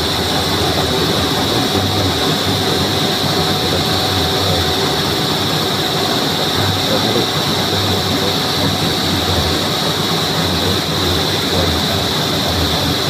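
Rice extruder running steadily: a loud continuous machine drone with a steady high whine over it.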